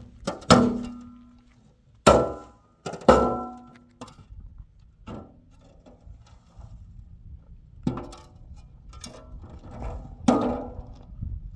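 Irregular hammer blows, each with a short ringing tone that dies away. Several heavy strikes come in the first three seconds, then lighter, scattered knocks, with one more heavy blow near the end.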